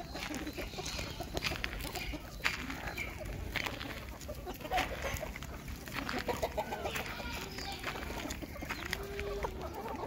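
A flock of free-range desi country chickens clucking and calling while they feed, with many short ticks mixed in.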